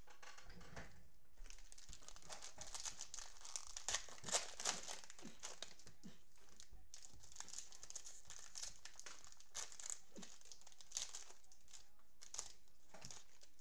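Plastic cellophane wrapper of a 2020 Panini Prizm football card cello pack crinkling and tearing as it is handled and opened. The crinkling starts about a second and a half in, is loudest around four to five seconds, and ends with a few sharp crackles near the end.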